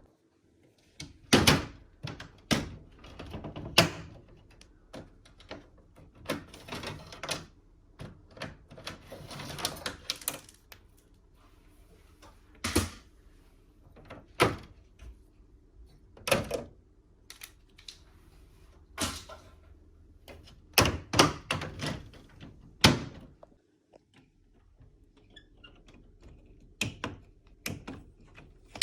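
Irregular clicks, knocks and thunks of plastic panels and parts being handled on a Mitsubishi heat pump, with some rustling in between, as the unit is opened up for cleaning.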